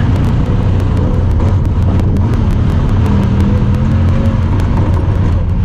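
Honda Talon 1000R side-by-side's parallel-twin engine running steadily under way, with a fast faint ticking over it that the uploader puts down to the camera.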